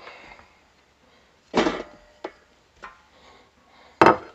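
Raw hand-cut potato fries tumbling off a ceramic plate into an air fryer basket in one rustling rush, then a few light knocks. A sharp clink comes near the end.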